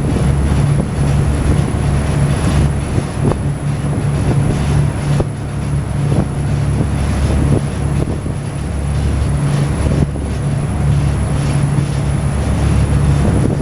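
A river boat's engine running steadily, a loud continuous low drone.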